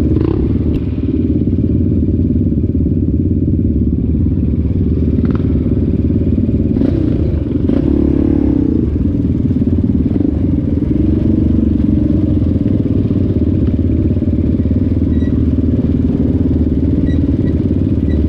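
ATV engine running steadily under way, a loud continuous low drone with a few faint clicks.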